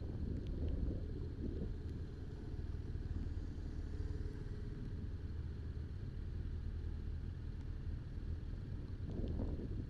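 BMW R1200RT boxer-twin motorcycle engine running steadily at low revs, with wind buffeting the microphone about a second in and again near the end.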